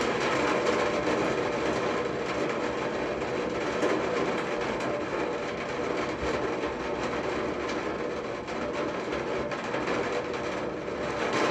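Heavy rain falling, a steady dense hiss of drops that holds at the same level throughout.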